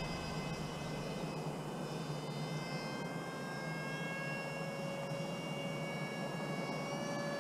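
Electric ducted-fan motors of a radio-controlled A-10 model flying overhead, giving a steady whine of several high tones that creep slightly up in pitch.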